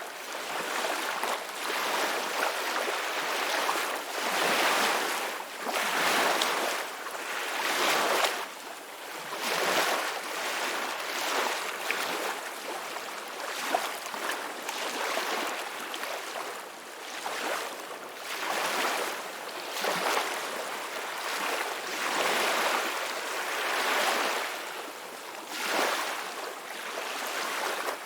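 Ocean waves breaking and washing up the shore, in a steady run of swells that rise and fall every couple of seconds.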